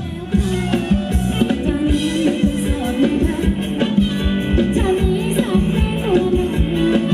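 A live band plays a Thai ramwong dance song, with a singer's melody over a steady drum beat.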